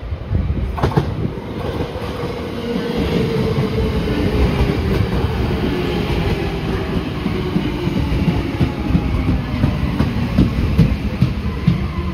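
Tokyo Metro Marunouchi Line 2000 series train pulling in alongside the platform. The wheels knock over the rail joints under a steady rumble, and the motor's tone falls slowly in pitch as the train slows.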